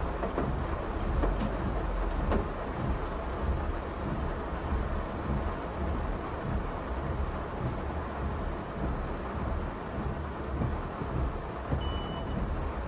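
Steady low rumble inside a Honda Brio's cabin, from the car's engine running and the noise of the moving car. A brief high beep sounds near the end.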